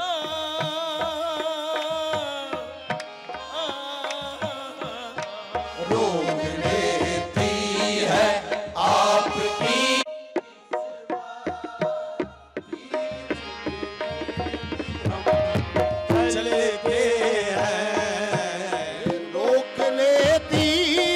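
Qawwali music: harmonium and tabla accompanying voices singing wavering, ornamented notes. The ensemble drops back briefly about halfway through, then builds again.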